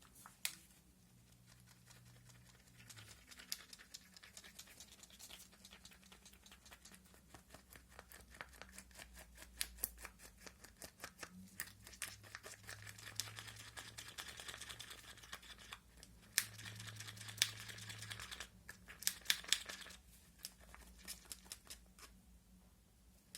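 Faint rapid clicking and scraping of a stick stirring tinted epoxy resin in a plastic cup, mixing in the pigment; the stirring grows busier in the second half and stops shortly before the end.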